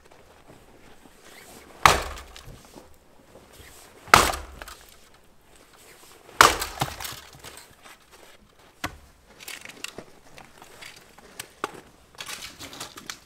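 Three hard strikes about two seconds apart, each trailing off briefly, followed by lighter scattered knocks and cracks near the end: something being struck and broken apart.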